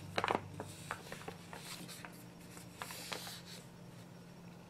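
Heavily pre-creased origami paper crackling and rustling as it is handled and folded, in short irregular crinkles, with a louder crinkle just after the start.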